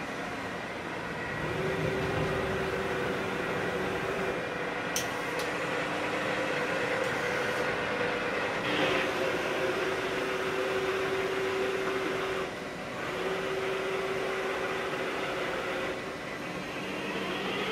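Lealde TCN-3 CNC lathe running under power: a steady machine hum with a mid-pitched whine that comes and goes several times, and a single sharp click about five seconds in.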